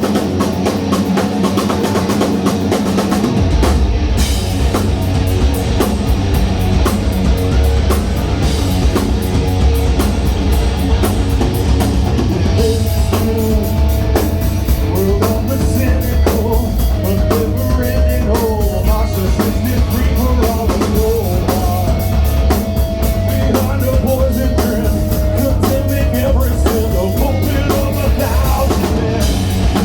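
Live rock band playing loudly. A guitar passage opens it, then drums and bass come in heavily about three seconds in, and the cymbals build up about halfway through.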